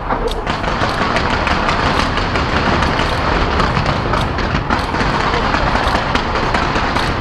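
Fireworks display crackling and popping without a break, countless small bangs merging into a dense, steady rattle.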